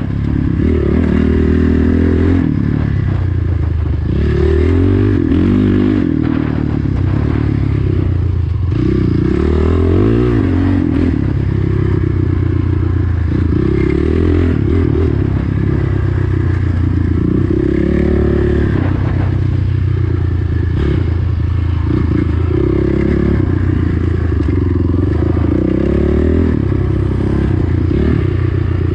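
Dirt bike engine running hard, its revs rising and falling again and again with the throttle.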